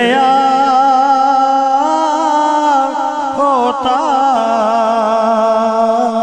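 A man sings a naat, a devotional poem, solo into a microphone in long held notes with a slight waver, plus an ornamented run of quick turns about halfway through.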